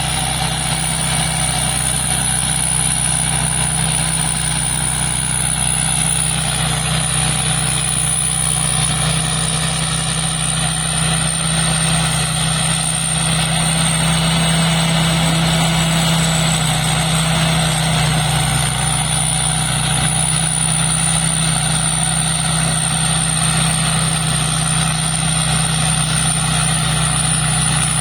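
Large rice combine harvester running steadily, its diesel engine and threshing machinery giving a constant low drone with a thin high whine over it that wavers slightly in pitch.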